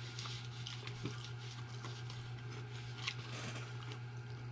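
Quiet eating at a table: faint rustling and a few small clicks as fries are picked from a paper cup and a burger is bitten, over a steady low hum.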